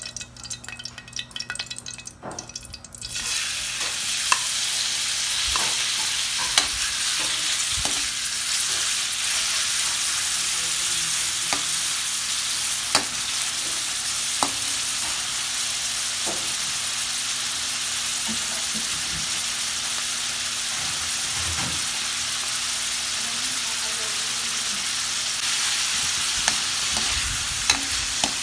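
Marinated pork cubes sizzling in hot oil in a wok. The sizzle starts suddenly about three seconds in, as the meat goes into the oil, and stays steady, with a metal spatula clicking and scraping against the wok as the pork is stirred.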